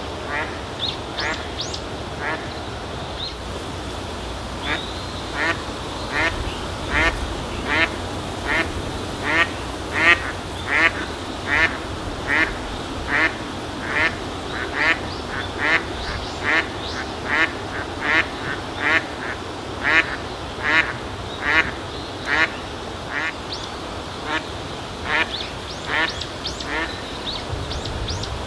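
Eastern spot-billed duck giving a long, steady series of short quacks, its everyday call notes, about one every 0.7 seconds, loudest midway. A steady hiss of outdoor ambience runs underneath.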